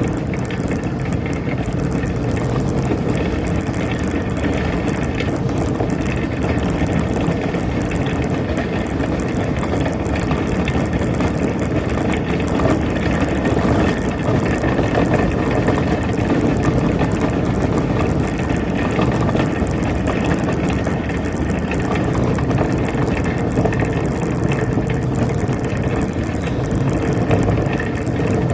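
Steady rolling rattle of a shopping cart's wheels and wire frame over pavement, running on without a break.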